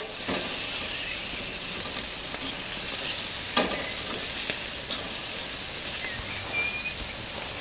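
Sausages sizzling on a charcoal barbecue grill while being turned with metal tongs, with a few short clicks from the tongs, the sharpest about three and a half seconds in.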